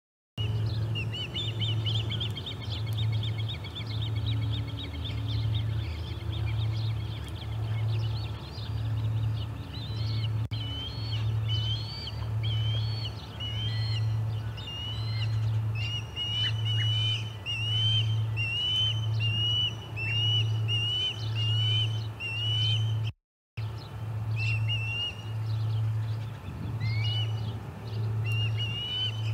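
Ospreys at the nest giving a long series of high, repeated chirping calls, denser and trill-like at first, then as separate down-slurred chirps. Underneath runs a low hum that pulses about once a second, and all sound drops out for a moment about three-quarters of the way through.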